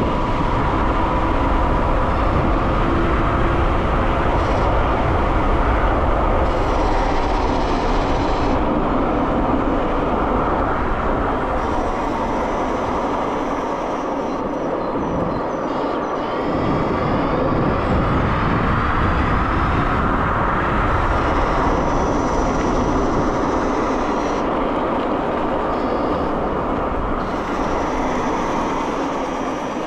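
Dualtron X Limited electric scooter riding at speed on asphalt: steady wind rush and buffeting on the microphone with tyre roar, and a thin steady whine from its hub motors. The pitch of the higher whine shifts up and down for a few seconds in the middle.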